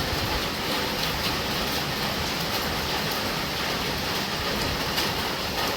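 Heavy rain falling steadily, a dense even hiss of rain on the surroundings.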